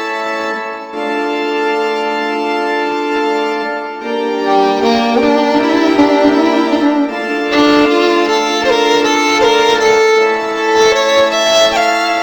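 Instrumental music: held keyboard chords, joined about four seconds in by a wavering violin-like melody.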